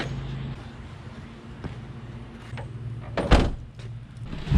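Soft bumps of a padded rod bag being loaded into the back of a Kia Sportage, then the rear hatch slams shut once, sharply, about three seconds in.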